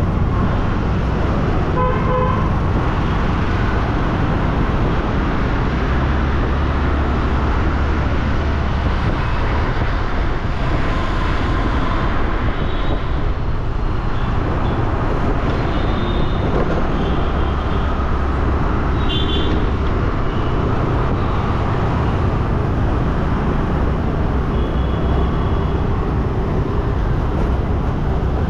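City road traffic heard from a moving scooter: steady engine and road rumble, with several short vehicle horn toots from nearby traffic.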